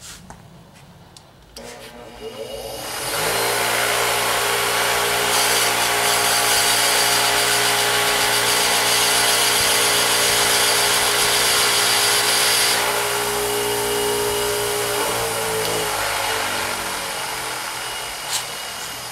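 Bench grinder starting up and running with a steady hum while a tungsten electrode is ground to a point on its stone wheel, the grinding hiss lasting about seven seconds. Then the motor winds down, falling in pitch, with a sharp click near the end.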